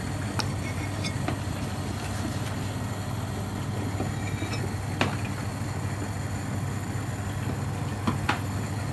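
A steady low mechanical hum, with a few light clicks and taps over it: the clearest about five seconds in and a pair near the end.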